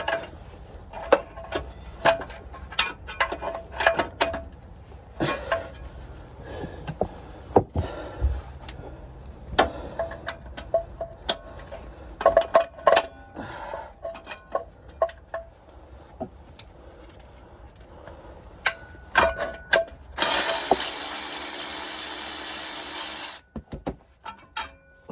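Hand tools clicking, clinking and knocking against metal parts while a transmission is being unbolted from a junkyard vehicle. Near the end comes a loud, steady mechanical whirring noise lasting about three seconds, which starts and stops abruptly.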